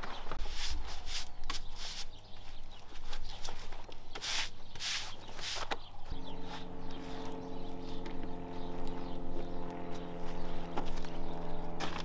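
A brush sweeping sawdust off freshly sawn pine boards in quick, hissing strokes. From about halfway a steady engine hum runs under a few sharp knocks.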